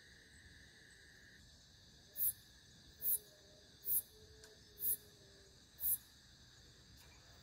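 Insects calling at night: a steady high-pitched chorus, and a loud, very high chirp repeated five times about once a second.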